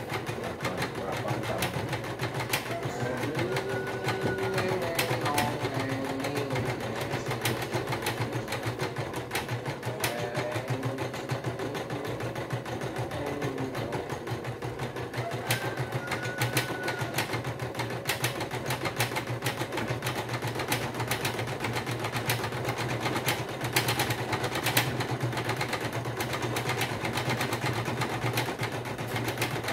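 Singer Quantum Stylist EM200 computerized embroidery machine stitching an embroidery design. Its needle works in a fast, steady clatter over the motor's hum, running on without stopping.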